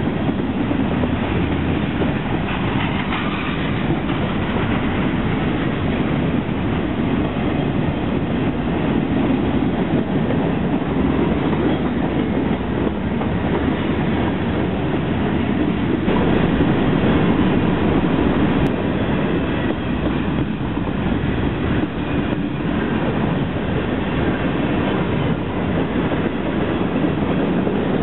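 Freight train cars, mostly covered hoppers, rolling past at close range: a steady noise of steel wheels running on the rails.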